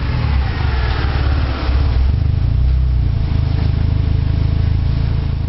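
Turbocharged 1993 Suzuki Swift GTi engine running on a chassis dyno. Its pitch falls in the first second or so, as the revs come down, and then it settles into a steady, loud low rumble.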